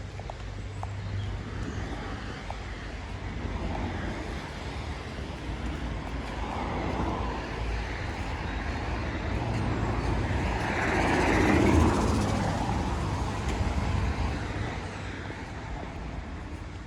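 Road traffic on wet asphalt: a car's tyre hiss and engine swell as it passes, loudest about two-thirds of the way through, then fade away.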